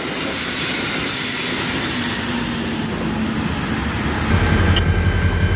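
Brightline passenger train rushing past at speed, a steady loud rush of wheel and air noise. A low, even pulsing joins it about four seconds in.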